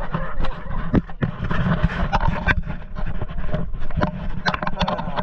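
Off-road vehicle engine running low and steady, with frequent knocks and rattles.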